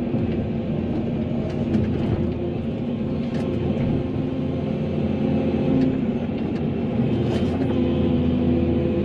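Volvo excavator's diesel engine running steadily while the bucket digs into soil, with a few light clicks and knocks scattered through.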